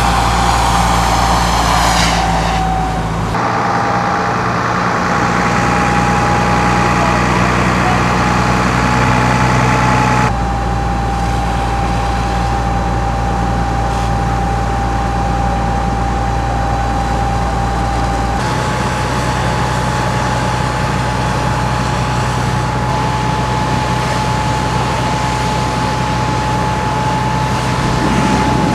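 Fire apparatus engines running steadily, a constant high whine over a low hum. The sound shifts abruptly three times.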